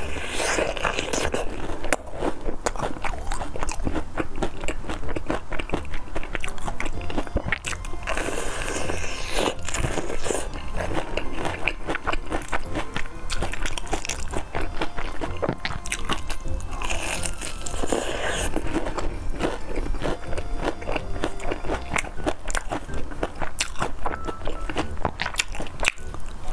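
Close-miked biting and chewing of breadcrumb-coated deep-fried chicken drumsticks: a dense, continuous run of crisp crunches.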